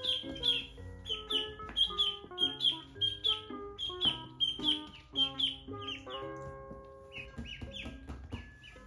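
Duckling peeping repeatedly in short, downward-sliding high calls, about three a second, thinning out after about six seconds, over background music.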